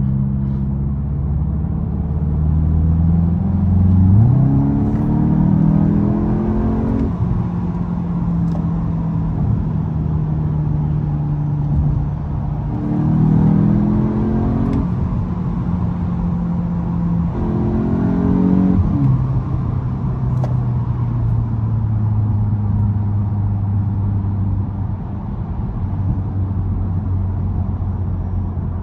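Volkswagen Golf 8 GTI's 2.0-litre turbocharged four-cylinder petrol engine pulling hard under acceleration. Its pitch climbs three times, each climb cut off by a sudden drop as it shifts up a gear, then it settles to a steady cruise.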